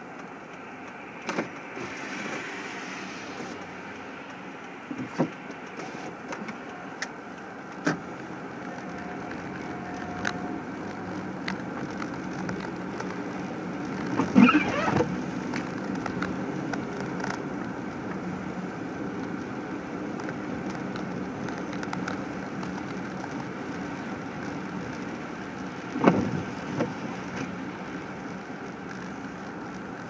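Car driving slowly, heard from inside the cabin as a steady running noise. Scattered light ticks run through it, with a louder knock about halfway through and another late on.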